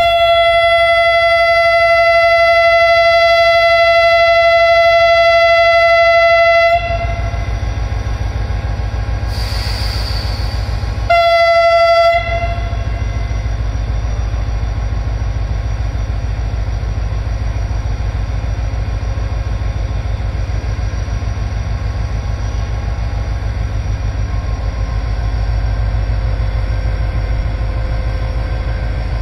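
Horn of a Pakistan Railways HGMU-30 (GE U30C) diesel-electric locomotive: one long steady single-note blast of about seven seconds, then a brief hiss, then a second short blast about eleven seconds in, sounded as the train gets its signal to leave. Under and after the blasts, the locomotive's diesel engine keeps up a steady low rumble.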